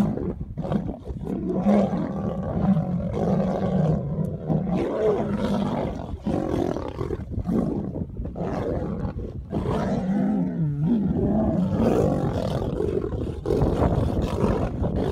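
Two male lions fighting, growling and snarling almost without a break, their deep calls wavering up and down in pitch.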